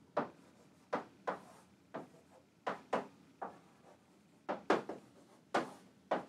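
Chalk writing on a chalkboard: a string of about a dozen short, sharp taps and scratches, unevenly spaced, as each stroke is made.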